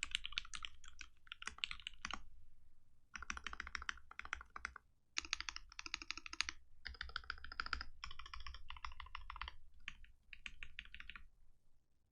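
Fast typing on a custom mechanical keyboard: polycarbonate case and plate, lubed linear Retooled Black switches and Infinikey Islander keycaps, clacking in quick runs broken by short pauses. The typing stops a little under a second before the end.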